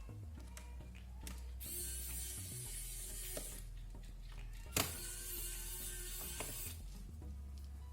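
Small mechanical clicks and ratcheting ticks from tools and parts being worked on a laptop's underside, with one sharp, louder click about five seconds in. Soft background music underneath.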